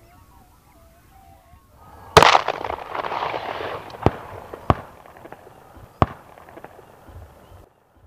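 Faint bird calls, then a loud shotgun blast about two seconds in, followed by a couple of seconds of rushing noise and three more single shots, at the opening of duck shooting season at dawn.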